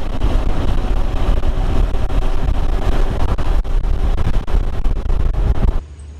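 Wind rushing and buffeting over a helmet-mounted camera's microphone on a KTM 390 Adventure motorcycle riding at about 50 km/h, with the single-cylinder engine running under it. It cuts off suddenly near the end.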